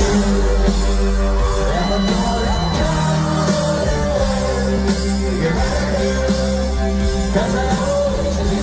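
Live rock music from a band on stage, with crowd voices singing and yelling along.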